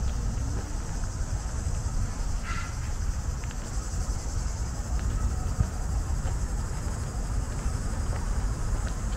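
Steady high-pitched buzzing of insects in the park trees, over a constant low rumble. A brief chirp comes about two and a half seconds in.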